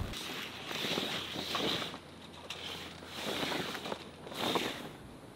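Sailcloth and canvas rustling as it is pulled and handled, in three or four bursts of about a second each.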